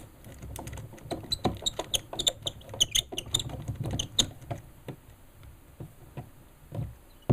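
Screws being tightened with a screwdriver through a plastic wall plate into its C-clip: a run of small squeaky clicks and creaks that thins out after about four and a half seconds.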